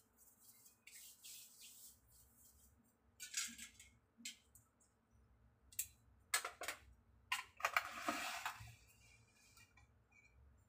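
Faint clinks and knocks of metal kitchenware being handled, as an aluminium steamer tray and a pan of cake batter are set down on the counter. The loudest clatter comes about six to eight and a half seconds in.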